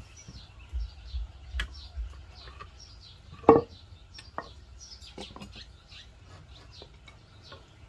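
Clamps being loosened and taken off a timber that was clamped to straighten it: a few low knocks in the first two seconds, then one sharp, loud knock about three and a half seconds in, and scattered smaller clicks. Small birds chirp repeatedly throughout.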